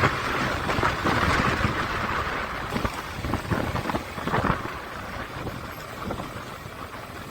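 Wind rushing over the microphone of a camera on a moving motorcycle, over low engine and road rumble with scattered short knocks, growing quieter toward the end.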